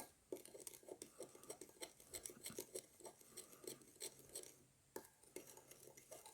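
A spoon stirring coconut oil and turmeric together in a bowl: faint, quick scrapes and clicks against the bowl, several a second.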